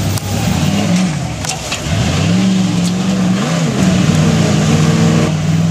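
1979 Ford Bronco's engine revving in repeated bursts under load, its pitch rising and falling several times, with a few sharp clicks.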